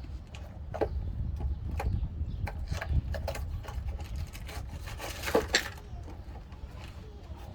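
Irregular clicks and knocks from tools and metal parts being handled, over a steady low rumble; the loudest pair of knocks comes a little past halfway.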